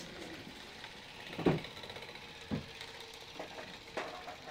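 A sewing machine running faintly, with two dull knocks a little over a second apart, the first the louder.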